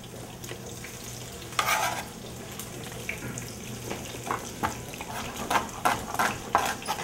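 Sliced bell peppers frying in olive oil in a pan, a steady sizzle, with one louder burst about a second and a half in. From about four seconds in, a knife chops on a plastic cutting board in short, irregular strikes.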